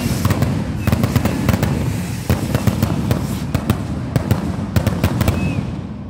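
Fireworks going off in quick succession: a rapid string of sharp bangs and crackles over a low rumble, thinning out near the end.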